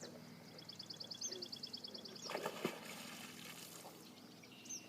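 A beaver slapping its tail on the water: one splash about two and a half seconds in, the loudest sound. Before it a small bird trills fast, about ten high notes a second.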